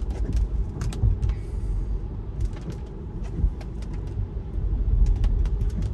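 Tyre and road noise inside a Tesla's cabin on a wet road, a steady low rumble with scattered light ticks.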